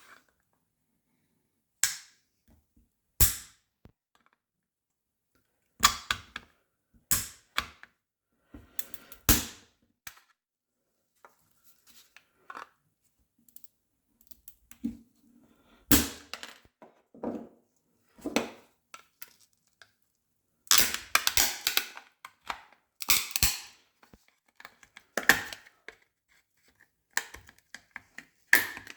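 Hard plastic card grading slab being cracked open: a series of sharp, irregular cracks and snaps of the plastic case, a few seconds apart, with a short busier run of cracking about two-thirds of the way in.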